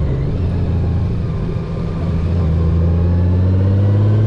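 2018 Honda Gold Wing's flat-six engine running under way, with a brief dip in level about a second and a half in. After it the engine note climbs steadily as the bike accelerates through a gear on its dual-clutch transmission.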